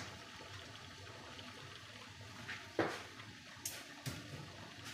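Water boiling in a wok on a gas burner to steam rice cakes, a steady low hiss and bubbling. A few light knocks, the loudest about three seconds in.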